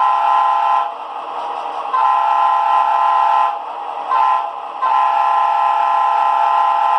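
Model locomotive's sound decoder playing a Nathan P5 air horn sample through its small speaker: a multi-tone horn chord blown four times, the third blast short and the last the longest. A lower steady sound continues in the gaps between blasts.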